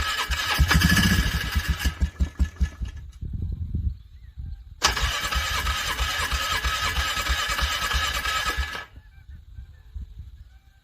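A vehicle's starter motor cranking a cold engine that does not catch, in two long attempts. The first dies away about three seconds in; the second runs from about five seconds to about nine seconds in and then stops. Each attempt is a steady whirr over a fast, even chugging of compression strokes: the engine struggling to crank over in frigid cold.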